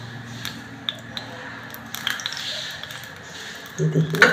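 Ghee melting in a small steel tadka ladle over a gas flame, sizzling faintly with a soft hiss and scattered small pops. Near the end there is a short, louder burst with a sharp knock.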